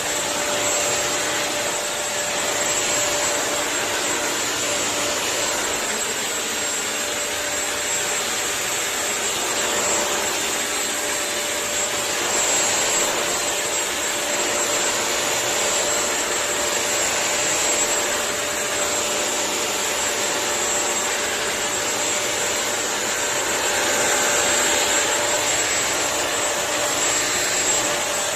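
Bissell CrossWave wet-dry multi-surface floor cleaner running steadily: an even motor whine over a rushing hiss, with no change in speed.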